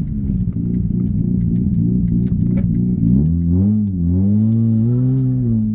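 Mazda RX-8 rotary engine running while the car is driven: steady revs at first, then the revs dip and rise again about halfway through, with scattered light clicks over the top.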